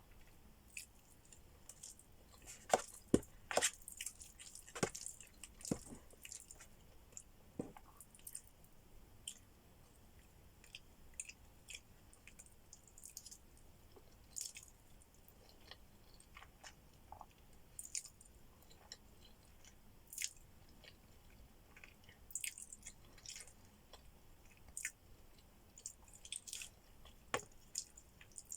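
Close-miked chewing and mouth sounds of a person eating, with wet smacks and clicks; the louder bites cluster from about three to six seconds in, then come scattered.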